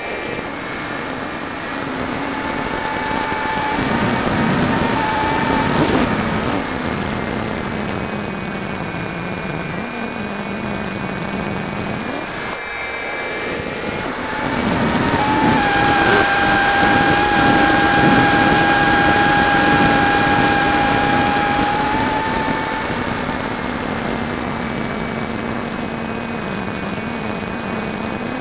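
Electric motor and propeller of a Firebird Delta Ray RC plane heard from a camera on board: a steady whine that shifts in pitch as the throttle changes, over wind rushing past the microphone. The motor eases off briefly about 13 seconds in, then runs louder and higher from about 15 to 22 seconds.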